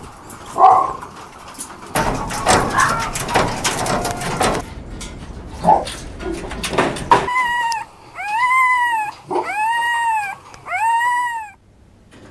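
Caged farmed foxes: clattering on the wire-mesh cage with a couple of short yelps, then four drawn-out whining calls about a second each, each rising and then falling in pitch.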